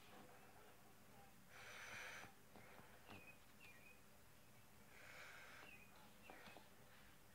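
Near silence, with two soft breath-like exhales about two and five seconds in and a few faint clicks from handling.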